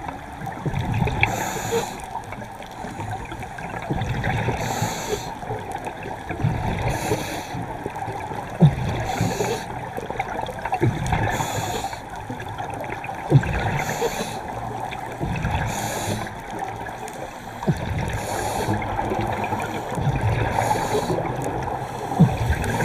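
Underwater sound during a dive: constant crackling and knocking water noise with scattered sharp clicks, and a hiss that comes back roughly every two seconds.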